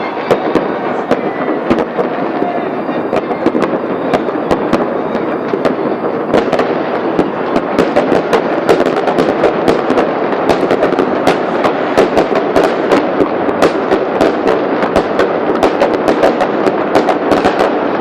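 Fireworks display going off: a continuous barrage of sharp bangs and crackling, growing denser from about six seconds in.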